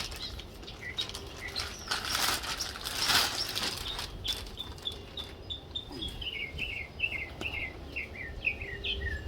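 Packaging crinkling and rustling, with a few clicks, as a door sill protector piece is unwrapped. In the second half a bird sings a run of short chirps that step down in pitch.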